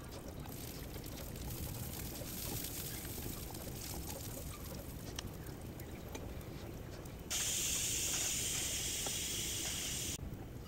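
Garlic slices sizzling in hot oil in a frying pan. About seven seconds in the sizzle suddenly gets much louder for about three seconds, then drops back abruptly.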